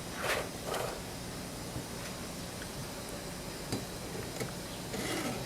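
A file stroked across a chainsaw chain's cutter: two quick strokes just after the start, a few light clicks, and another stroke near the end.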